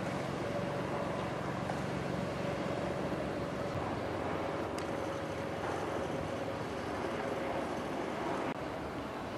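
Steady outdoor harbour noise with a low, even engine hum and a faint steady tone, dropping slightly near the end.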